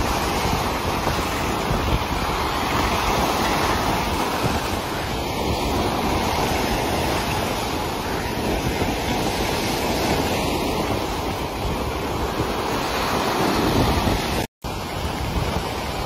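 Sea surf breaking and washing over a rocky shore, a continuous loud rush of water that swells and eases. The sound drops out for an instant near the end.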